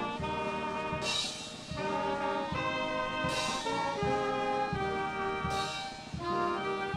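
Live band playing a tune with held, changing notes, and a cymbal crashing three times, each ringing on and fading.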